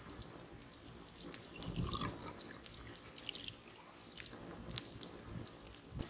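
Wood campfire crackling, with scattered sharp pops and snaps.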